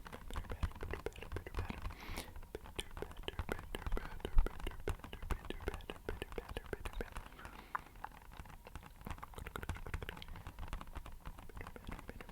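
Rapid, light tapping on an empty box, a dense irregular patter that sounds like rain. There is a brief scrape about two seconds in.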